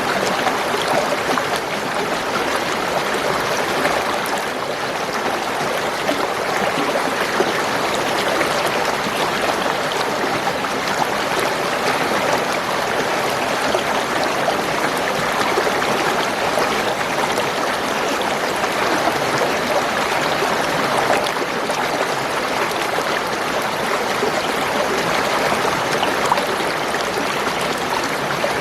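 Spring water running and gurgling in a steady, continuous stream.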